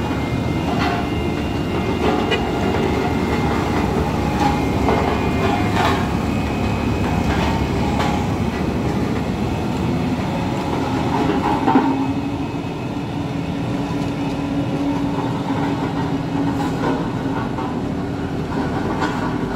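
Heavy diesel truck engine running hard, with scattered knocks and clatter. A steady droning note sets in about two thirds of the way through.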